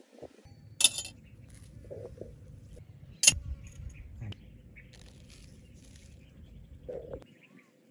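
Two sharp clicks, then a soft, fine crackle as white seasoning granules are poured from a glass onto chopped vegetables in a woven basket, over a low outdoor rumble.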